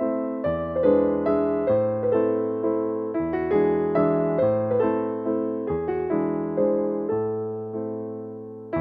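Background piano music: a melody of struck notes that ring and die away over held low bass notes, the phrase fading off near the end.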